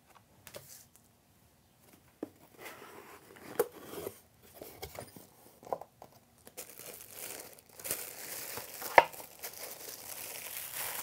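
Paper and cardboard packaging handled by hand: an unboxing. Scattered light taps and rustles as the box is opened, then steadier rustling and crinkling of tissue paper wrapping from about two thirds of the way in, with one sharp knock.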